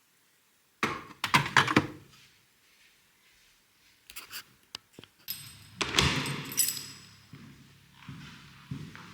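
A series of thunks and clatters from objects being handled: a quick cluster of knocks about a second in, a few more around four seconds, and a louder clattering scrape around six seconds.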